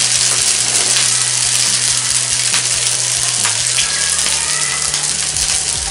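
Mutton chapli kabab patty sizzling steadily in oil on a hot nonstick tawa, just after being laid in the pan.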